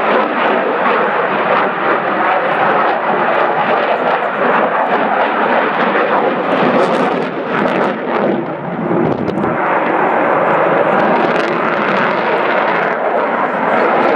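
Fighter jet flying a display pass, its jet engine a loud, steady rushing noise that dips briefly about eight seconds in.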